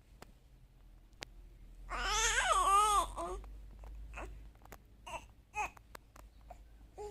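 Baby vocalizing: one long, high, warbling babble about two seconds in, followed by a few short soft coos.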